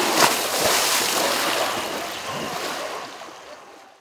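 Elephant splashing in a pool, throwing water with its trunk so it crashes back onto the surface, fading out over the last second or so.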